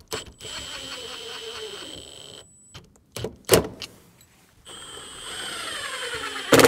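Cordless driver driving screws through a steel door frame's jamb. The motor runs for about two seconds and slows as the screw bites. After a knock, it spins up again and turns into a much louder, harsher burst as the screw seats just before the end.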